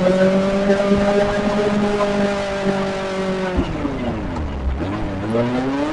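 Kawasaki ZX-25R's 250 cc inline-four engine running with its high, buzzing wasp-like note held steady. About three and a half seconds in the revs drop steeply, then climb again near the end.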